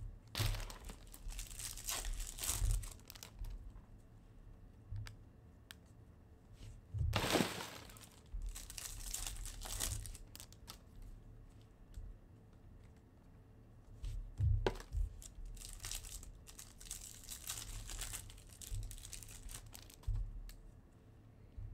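Foil wrappers of Topps baseball card packs crinkling and being torn open, in several bursts with short pauses between.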